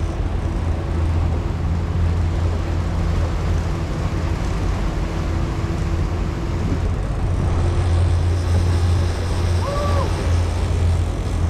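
Boat's twin outboard engines running steadily under way, a low drone with the rush of wind and water over it. A brief high squeak about ten seconds in.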